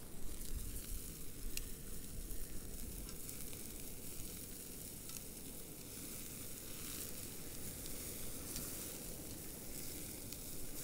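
Steaks sizzling on a wire grill rack over an open wood fire, a steady hiss with occasional sharp pops, over a low steady rumble.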